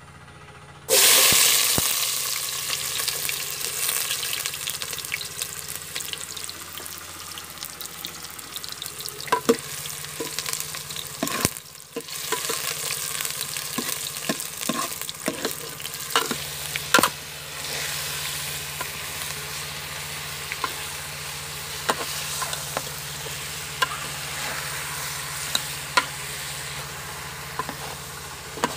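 Sliced onions hit hot oil in a metal pot and start sizzling loudly about a second in, then keep frying while a metal spoon stirs them, clinking and scraping against the pot now and then.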